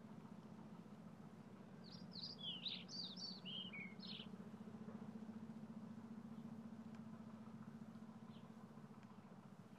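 A songbird sings one short phrase of quick, varied chirps about two seconds in, with a single faint chirp later, over a low steady hum.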